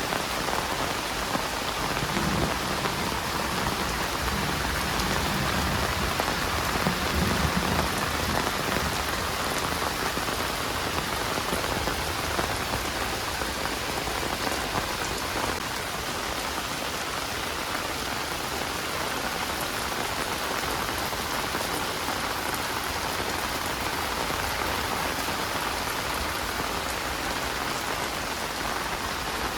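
Heavy rain falling steadily and pattering on surfaces, with a low rumble that swells and fades in the first third.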